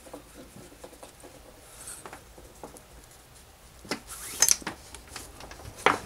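Paracord being handled and pulled tight while tying a cobra weave, with soft rubbing and rustling. A few short sharp ticks stand out, two about four seconds in and one near the end.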